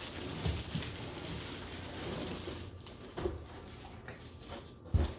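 Cardboard shipping carton being slid off a shrink-wrapped brick of boxes: cardboard scraping and rustling with a few light knocks, then one low thump near the end.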